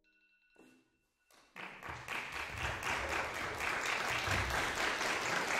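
A small audience applauding, starting about a second and a half in after a brief silence and going on steadily.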